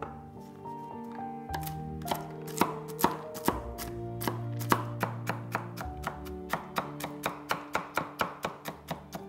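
Chef's knife chopping walnut halves on a wooden cutting board: a few slower, uneven cuts at first, then a quick steady rhythm of about four chops a second. Background music plays underneath.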